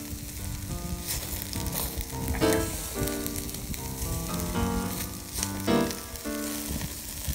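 Chicken yakitori skewers sizzling on a grill over hot charcoal, with background music playing.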